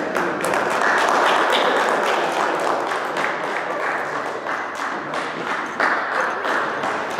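Small audience applauding, dense clapping that peaks about a second in and then slowly dies down.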